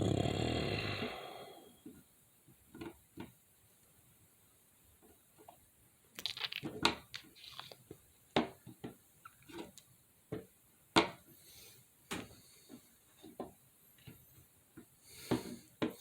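A rough growl in about the first second and a half. After that come scattered sharp clicks and knocks, more frequent from about six seconds in.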